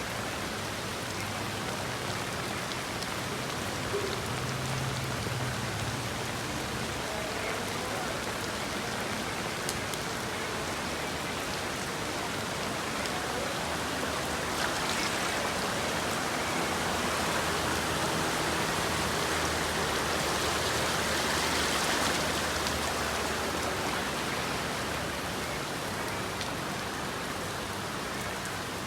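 Heavy rain pouring steadily on the street, swelling louder for several seconds about halfway through, with a faint low hum underneath.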